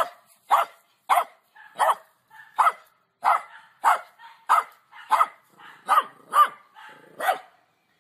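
A small hairless dog barking over and over in a steady rhythm, about one and a half barks a second, each bark short and high.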